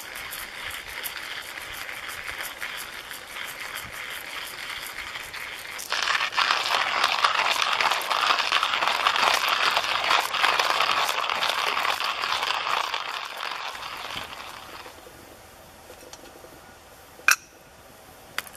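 Wood campfire crackling and hissing, suddenly louder about six seconds in and fading away after about fifteen seconds. Two sharp clicks near the end, the first the loudest sound in the stretch.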